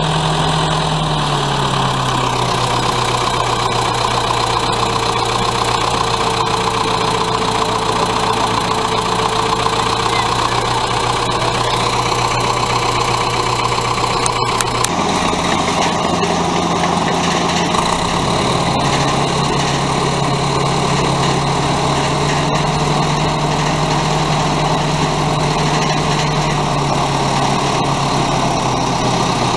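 Allis-Chalmers HD-6 crawler dozer's diesel engine running steadily, its speed dropping about a second in. Midway the note changes abruptly to a faster run, then eases back down in steps toward the end.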